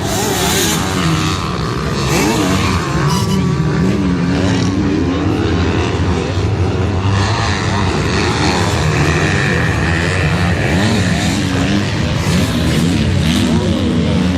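Several MX2 motocross bikes racing, their engines revving up and down with overlapping, constantly changing pitches as riders work the throttle around the track.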